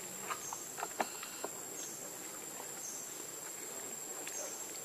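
Insects keeping up a steady high-pitched buzz, with fainter short chirps about once a second. A few light ticks and rustles in dry leaf litter come in the first second and a half.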